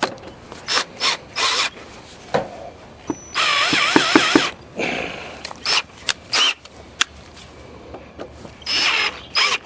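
Power drill run in a series of short trigger bursts and one longer run of about a second, its pitch wavering under load, as it works at a stuck brass screw in old lumber.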